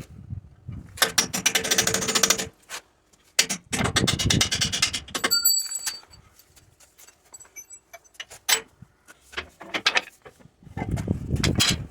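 Repair work with hand tools: two runs of rapid clicking and knocking about a second and a half each, then scattered single knocks and another run near the end.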